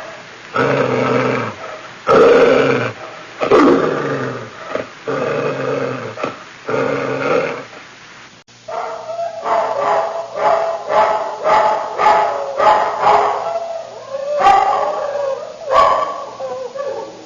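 Dog growling in a series of drawn-out bursts, each about a second long; about halfway through, after a cut, a higher-pitched dog yips quickly, about twice a second, with a couple of longer whines near the end.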